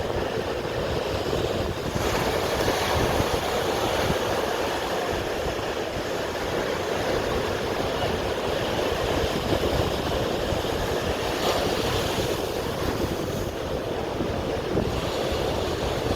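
Sea waves washing in continuously, swelling a little now and then, with wind buffeting the microphone.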